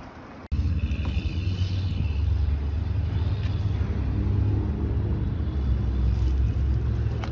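Steady low rumble of engine and road noise from a Class C motorhome being driven, starting abruptly after a cut about half a second in.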